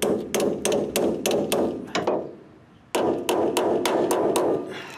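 Hammer blows on a steel sway bar mounting clamp backed by a dolly, closing the clamp around its bushing. The blows come in two quick runs of about five strikes a second, with a pause of about a second between them, and each blow rings briefly.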